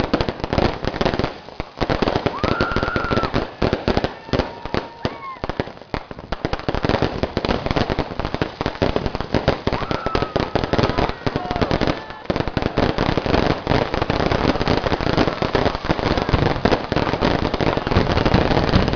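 Fireworks display: a dense, nearly continuous run of rapid bangs and crackles from rockets, aerial shells and sparking fountains. It eases off briefly about a second and a half in and again around six seconds.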